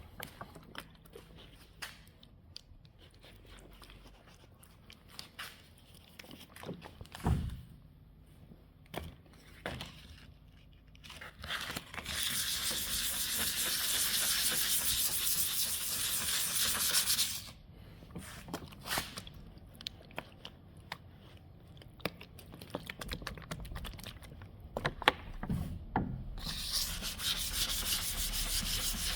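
Sanding on a car's body panels: scattered scrapes and taps, then two steady stretches of rubbing hiss, each about five seconds long, near the middle and near the end.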